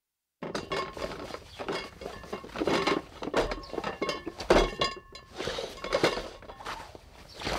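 Glass bottles clinking and knocking against each other in a crate, a busy string of sharp chinks, some ringing briefly, starting about half a second in.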